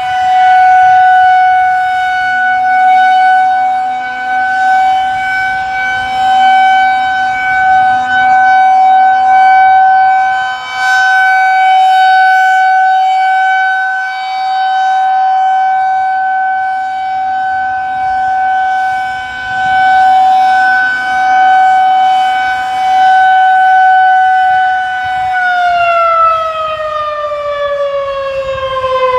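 Federal Signal 2001-130 rotating electromechanical siren sounding a steady alert tone, its loudness swelling and fading as the horn turns. About 25 seconds in the tone stops holding and the pitch starts falling as the siren winds down.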